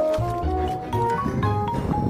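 Background music with short melody notes over a pulsing bass; about a second and a half in, a rough, grainy sound comes in low under the music.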